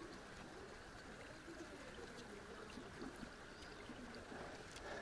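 Faint, steady sound of a river's current flowing.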